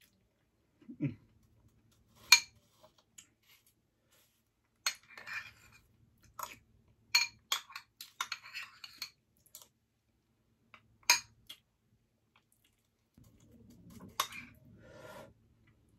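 Metal spoon clinking and scraping against a glass bowl as it scoops, a sharp clink every second or two, with soft eating sounds between.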